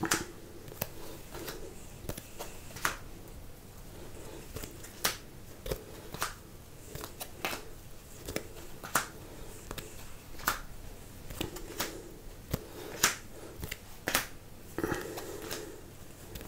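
Cards being laid down one by one onto a game board: a series of light clicks and slaps, roughly one a second at uneven spacing, with soft sliding of cards between.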